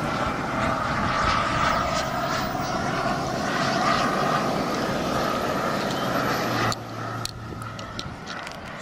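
Gas-turbine engine of a radio-controlled Reaction 54 model jet running with a steady whine. The sound drops noticeably in level about seven seconds in.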